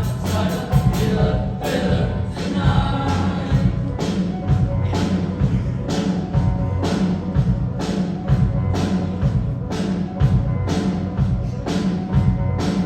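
Junior high girls' choir singing over music with a steady beat.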